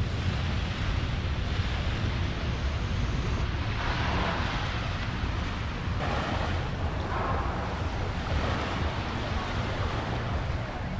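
Surf washing onto a beach, with wind buffeting the microphone. The wash swells up twice, about four and seven seconds in.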